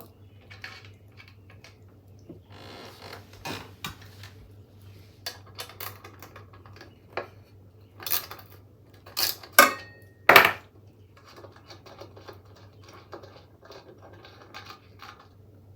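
Metal tools and bicycle parts clinking and clicking as they are handled, with a few loud sharp metal clanks about eight to ten and a half seconds in, one briefly ringing. A steady low hum runs underneath.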